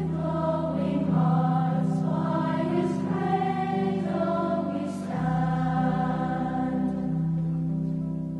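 A choir singing slowly in harmony over held low notes.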